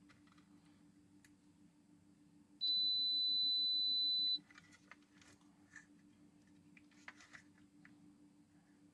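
Digital multimeter's continuity beeper sounding one steady high beep for just under two seconds, the signal of a closed circuit between the probes. Faint clicks and taps come before and after it.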